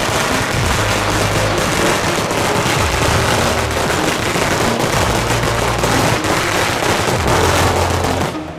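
A long string of Ogon Smoka 'Celebration Cracker 20000' flash-banger firecrackers going off in a dense, rapid, unbroken crackle of bangs, which stops near the end.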